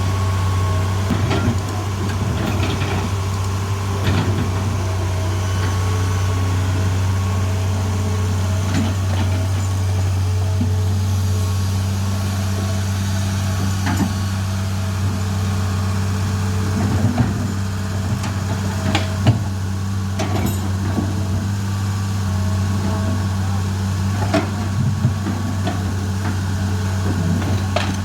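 Heavy engine idling steadily, with scattered short metallic knocks now and then.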